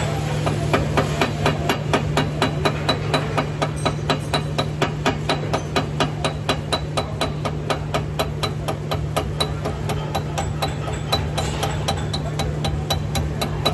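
Welder's chipping hammer tapping slag off a freshly laid weld bead on a steel part, with quick, even metallic knocks about three a second, starting about a second in. A steady low hum runs underneath.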